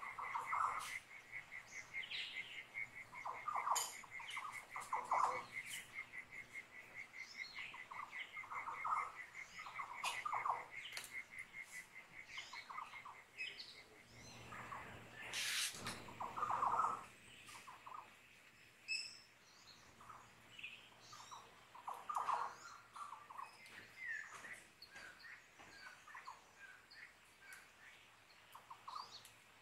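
Natural field recording of several birds calling, with a cricket's fast, even pulsing chirp that stops about halfway through. A brief rushing noise sounds about halfway.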